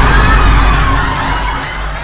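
A loud, bass-heavy crowd cheering and shouting sound effect that starts abruptly and fades away near the end.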